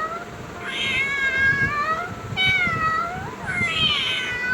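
A domestic cat meowing: about three long meows in a row, each roughly a second long and mostly falling in pitch.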